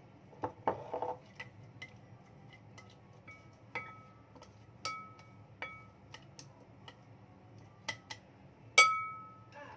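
Chopsticks clinking against the side of a ceramic mixing bowl while stirring, with over a dozen irregular taps, many leaving a short ring from the bowl. The loudest tap comes near the end.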